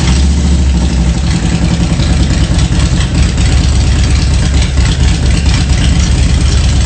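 Motorcycle engine idling, loud and low.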